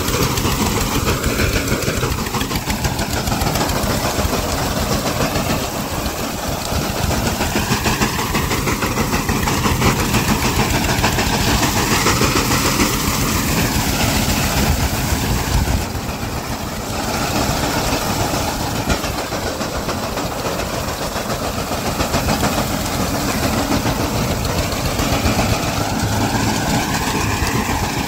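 Eicher 241 tractor's single-cylinder diesel engine running steadily under load, driving a front-mounted reaper that is cutting standing wheat. The level dips briefly just past the middle.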